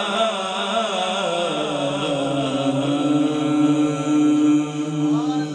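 A male naat reciter singing unaccompanied into a microphone, in a devotional chant style. A winding vocal line settles about a second and a half in into one long held note, which ends near the end.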